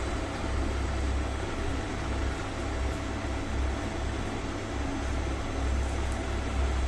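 Steady low rumble with an even hiss of background noise.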